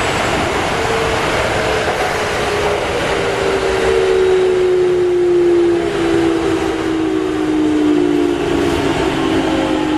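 Keikyu Type 600 electric train running, its Mitsubishi GTO-VVVF inverter and traction motors whining over steady wheel and rail noise. The whine is several tones that fall slowly in pitch as the train slows, and a new, higher pair of tones joins near the end.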